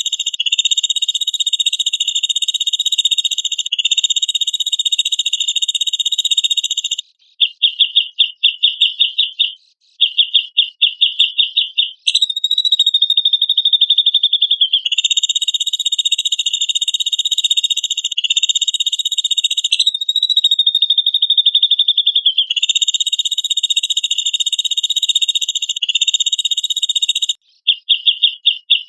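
A loud, high-pitched buzzing trill that runs almost without a break, twice dissolving into rapid pulsed bursts and twice sliding up and down in pitch.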